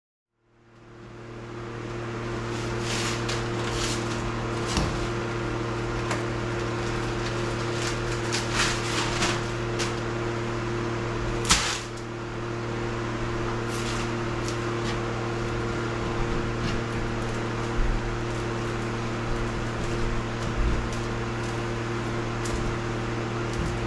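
A steady electrical hum, like a running fan or motor, fills the room. Over it come scattered rustles and clicks of plastic-sheathed NM electrical cable being uncoiled from its roll by hand, with one sharper snap near the middle.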